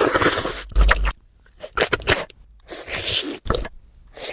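Close-miked eating: crunchy bites and chewing in several short bursts with brief pauses between them.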